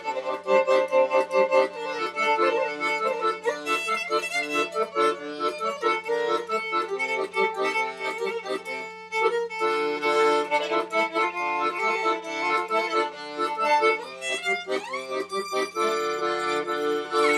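Instrumental background music with an accordion-like melody over a steady low drone. It breaks off briefly about nine seconds in, and a note slides upward near the end.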